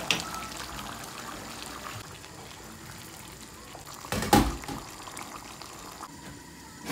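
Mutton curry simmering in an aluminium pot, a steady soft bubbling as the meat cooks down in the water it has released. A brief knock about four seconds in.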